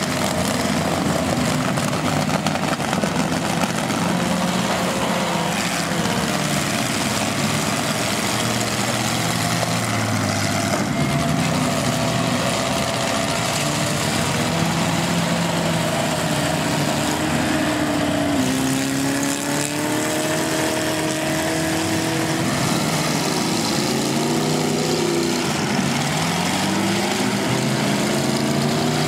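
Several demolition derby cars' engines running and revving together, their pitches rising and falling over one another, above a steady wash of noise.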